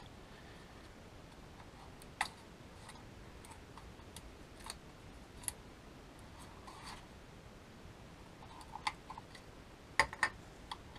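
Scattered light plastic clicks and rubbing from a DJI Mavic Air 2 drone's plastic body and camera gimbal being handled, with a sharp double click about ten seconds in.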